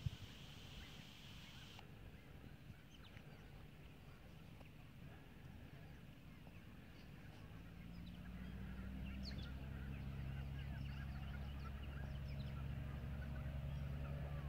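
The blimp's engines and propellers give a steady low drone that begins about halfway through and grows louder as the airship powers up for takeoff and heads toward the listener. Small birds chirp faintly throughout.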